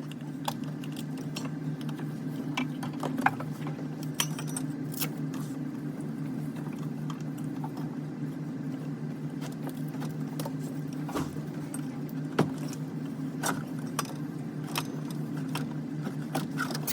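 Scattered metallic clicks and clinks of tools or parts being handled, over a steady low hum.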